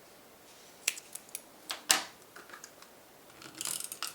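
Paper and crafting tools being handled on a work surface: a handful of light taps and clicks, the sharpest about two seconds in, then a brief papery rustle near the end.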